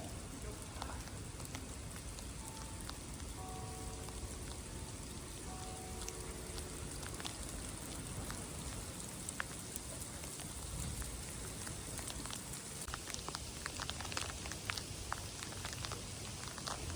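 Steady rain falling, with many sharp ticks of individual drops that get thicker in the last few seconds. Faint steady tones sound briefly about four to seven seconds in.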